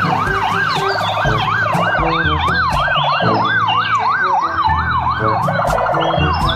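Electronic police siren wailing, its pitch sweeping up and down about twice a second.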